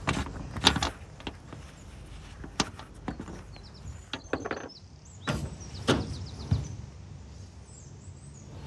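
Irregular clicks, knocks and scrapes from a narrowboat's pump-out deck cap being unscrewed with a deck key and lifted off, and from the fitting being handled. The loudest knock comes within the first second. Small birds chirp faintly in the background.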